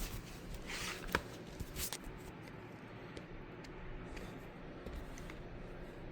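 Quiet room with a brief rustle and a few sharp clicks in the first two seconds, then only faint scattered ticks.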